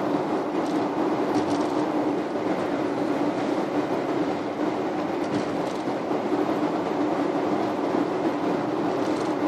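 Steady road noise inside a car cruising at highway speed: tyre roar and engine drone with a steady low hum.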